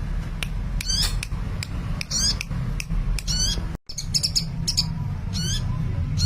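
Sunbird singing actively: a rapid run of high, thin chirps and quick up-and-down sweeping notes, with a very short break a little past halfway, over a steady low hum.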